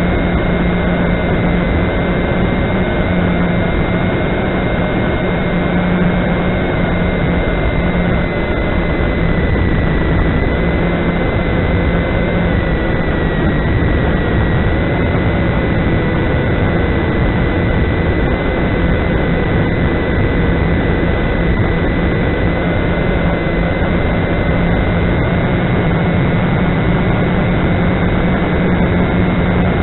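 Walkera QR X350 quadcopter's motors and propellers in flight, heard through its onboard camera's microphone. A loud, steady buzzing hum with a thin high whine that dips slightly in pitch midway, over a constant rush of air.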